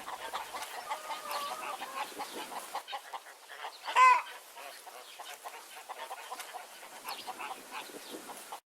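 Hens clucking in a steady run of short clucks, with one louder call about four seconds in. The sound cuts off suddenly just before the end.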